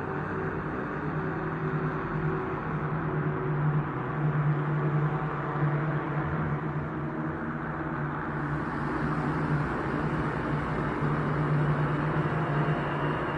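A steady, low droning ambience: a dark rumbling noise with a constant hum underneath, holding level without distinct hits.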